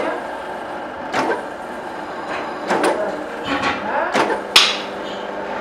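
Bench drill press motor running with a steady hum while the bit drills into a cast metal water-pump housing held by hand, with several short scraping bursts as the bit bites, the sharpest about four and a half seconds in.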